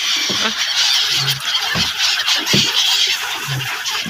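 A large flock of gulls calling all at once, a dense, unbroken chatter of high calls, as the birds crowd around thrown feed over the water.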